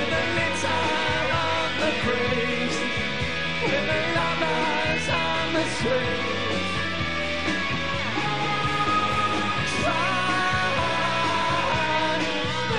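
Live rock band playing, with a male lead vocal sung over a full band and a steady drum beat.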